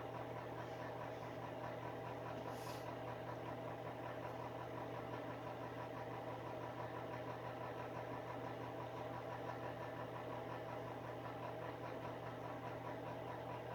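Electric space heater's fan running with a steady, even hum.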